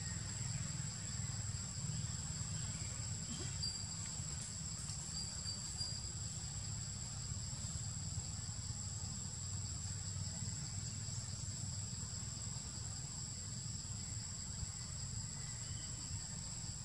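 Insects calling in a steady, high-pitched continuous drone, over a low steady rumble.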